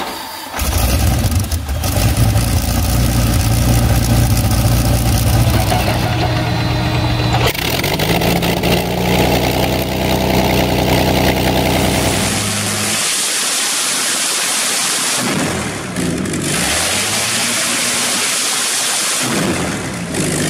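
Allison V-1710 liquid-cooled V-12 aircraft engine running on an engine stand. The sound changes abruptly about seven and twelve seconds in: a steady run first, then the engine note slowly climbing, then a run with a strong hiss over it.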